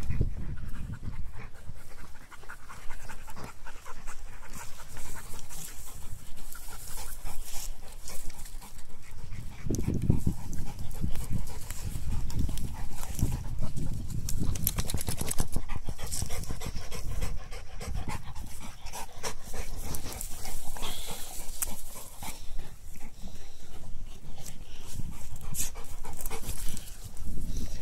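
A large dog panting close up while gnawing a leather soccer ball, with a steady run of irregular clicks and scrapes from its teeth and mouth on the ball.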